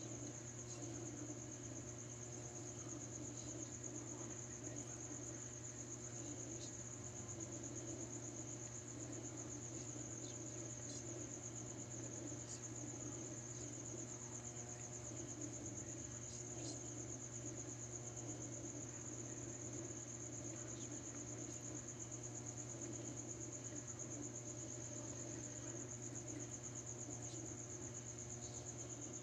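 Crickets chirping in a continuous high trill, over a low steady hum.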